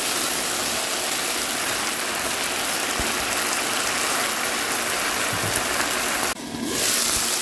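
Chicken strips sizzling and bubbling in a hot pan over high heat, cooking in the juices they have released with no water added: a steady hiss, broken briefly near the end.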